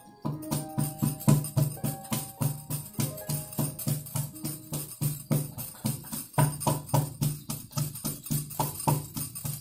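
Wooden pestle pounding garlic cloves and coarsely crushed black peppercorns in a wooden mortar, a steady fast rhythm of dull thuds at about three to four strokes a second, with bangles on the wrist jingling at each stroke.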